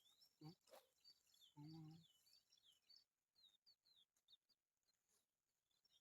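Faint outdoor ambience of small birds chirping, a rapid run of short, high, falling notes throughout. There are scattered faint clicks and rustles, and one brief low pitched call or voice about a second and a half in.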